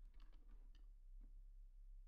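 Near silence with a handful of faint computer clicks, most in the first second and one more just after a second.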